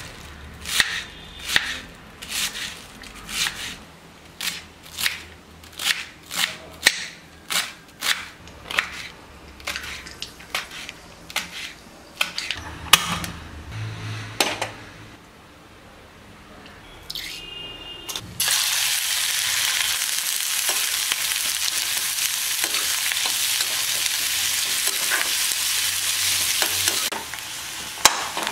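A knife slicing cabbage on a plastic cutting board, with sharp regular strokes a little under two a second for about twelve seconds. A few knocks follow as a kadai is set on a gas stove. From about eighteen seconds, chopped vegetables hit the hot oil and sizzle loudly and steadily until near the end.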